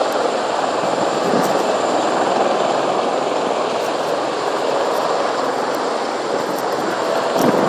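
Marine Corps helicopters' rotors and turbine engines running in a steady drone as they take off, with a thin high steady whine above it.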